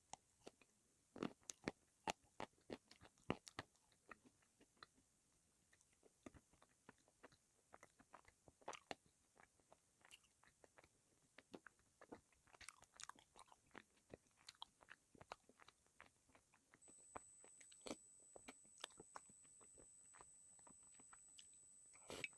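Dry chunks of Uzbek edible clay being bitten and chewed, with sharp, irregular crunches and cracks throughout. A thin, steady high-pitched whine joins about three-quarters of the way in.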